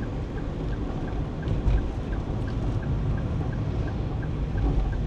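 Road and engine rumble inside a car's cabin while driving at about 50 km/h, with a faint regular tick about four times a second.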